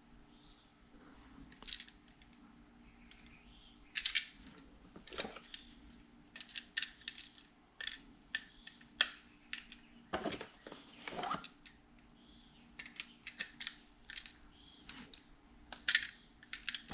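Light clicks and knocks of a plastic wall outlet and wires being handled, with short high-pitched chirps repeating about once a second throughout.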